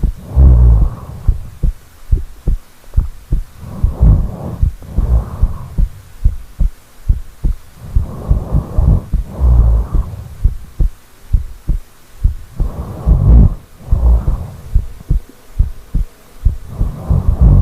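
A sleeping person snoring: loud, rough breaths in pairs about a second apart, repeating about every four seconds, with scattered low clicks between them.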